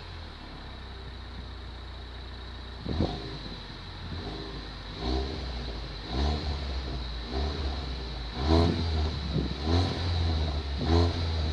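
Ford Focus ST Mk3 exhaust at the tailpipe: the engine idles steadily at first, then is blipped in short revs, about one a second in the second half, each rising and falling in pitch.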